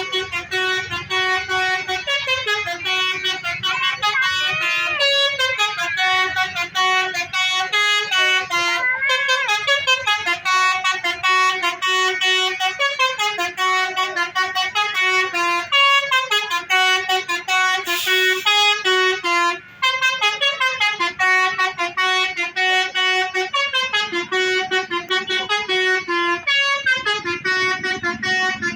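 Multi-tone 'telolet' bus horn playing a melody: a long run of loud stepped horn notes changing pitch several times a second, broken by a short gap about two-thirds of the way through.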